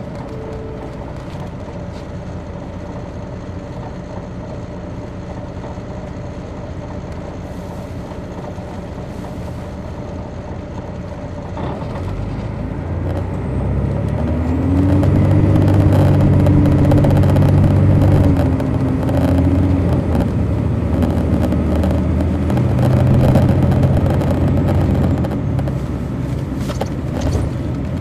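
2003 MCI D4500 coach's Detroit Diesel Series 60 diesel engine, heard from inside the bus: a steady drone with a constant whine at first, then from about twelve seconds in the engine grows louder and its pitch climbs as the bus accelerates under load, staying loud before easing off near the end.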